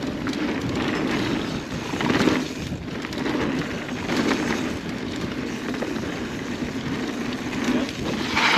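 Mountain bike rolling fast along a dry, dusty dirt trail: a steady rumble of tyres on dirt and rattling bike noise, swelling briefly about two seconds in and again near the end.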